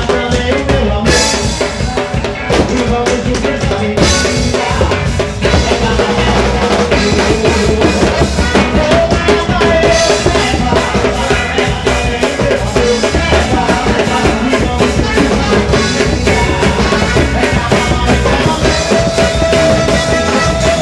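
Loud carnival music driven by a drum kit, with bass drum and snare keeping a fast, steady beat and a few held notes over it.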